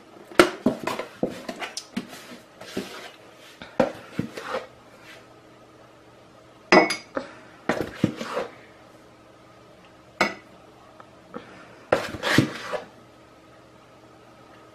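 Large metal spoon scooping flour and knocking against a ceramic measuring cup and a plastic tub: irregular clinks and scrapes in short clusters every second or two.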